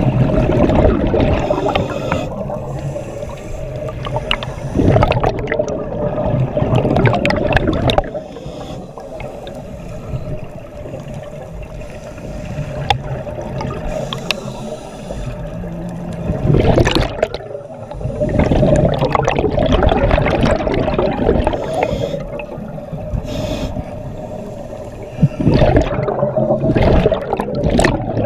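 Scuba regulator exhaust bubbles gurgling and rushing in long surges, heard underwater, over a steady hum.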